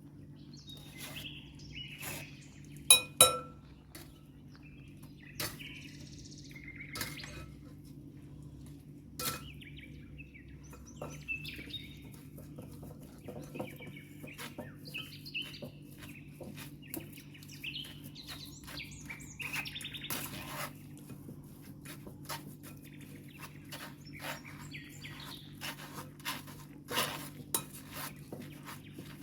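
Kitchen utensils and dishes clinking and knocking during food preparation, in scattered light taps throughout, with two loud ringing clinks about three seconds in.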